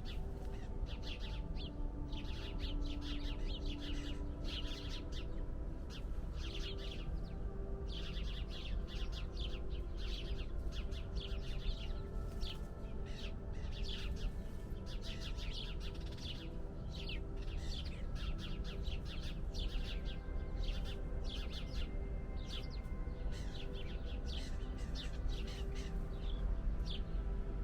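Small songbirds chirping and singing, many short rapid calls in quick clusters, over a steady low rumble.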